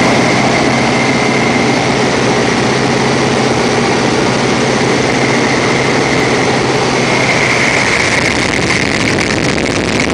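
Antique biplane's engine and propeller droning steadily in cruise flight, heard from the open cockpit with a heavy rush of air over the microphone. About seven seconds in the low hum fades and a higher whine grows.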